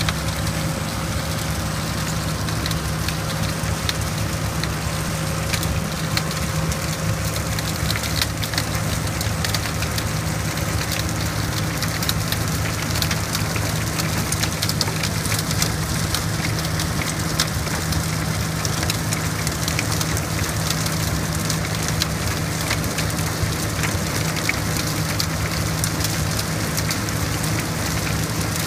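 Tractor-mounted rubber-flailed topper working a crop row: a steady drone from the tractor and spinning flail rotor, with a dense, continuous crackle like rain as cut foliage and soil strike the machine.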